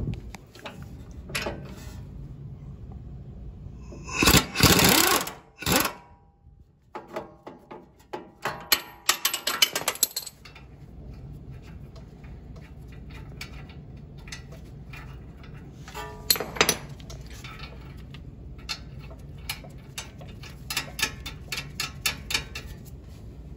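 Tools at work on a Toyota Tundra's front suspension, at the upper control arm ball joint: a loud burst about four seconds in, then runs of quick metallic clicks and knocks, over a steady low hum.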